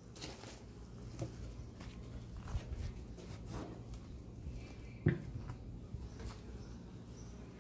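Handling noises from a beekeeper working at the hives: scattered light clicks and rustles of clothing and gear, with one sharper knock about five seconds in.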